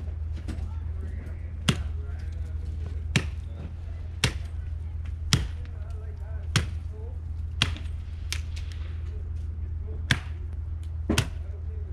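Machete chopping into a hanging tree branch: about nine sharp, separate strikes, roughly one a second, with two in quick succession near the end.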